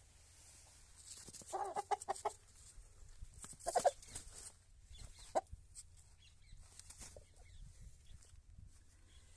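Kadaknath rooster clucking: a quick run of short clucks about one and a half seconds in, a louder single call near four seconds, and one short cluck a little later.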